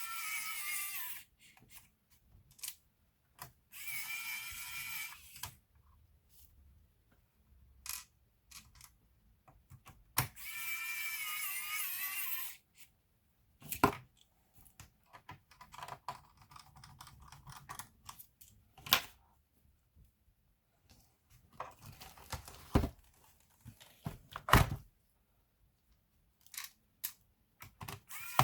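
Small electric screwdriver whirring in three short bursts of one to two seconds, driving or backing out laptop screws. Sharp clicks and knocks of small parts and casing being handled come between the bursts, two of them louder.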